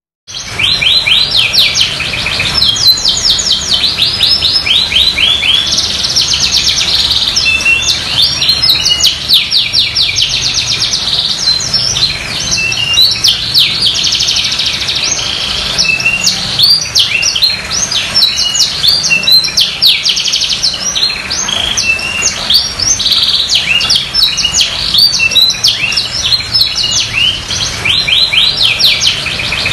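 Domestic canary in full song: a continuous run of long, rapid trills and rolling phrases, one after another without pause, starting a moment in.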